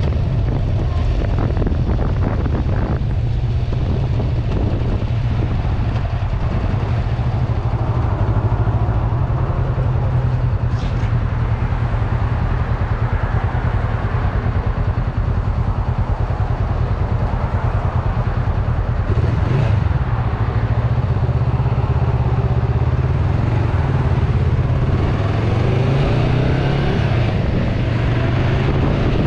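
1994 Kawasaki Vulcan 500's parallel-twin engine running steadily while riding, heard from the handlebars. The engine note rises near the end as the bike accelerates.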